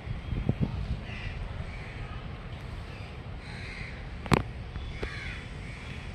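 Crows cawing, a series of caws roughly one a second, over a low steady background rumble. A single sharp click comes about four seconds in.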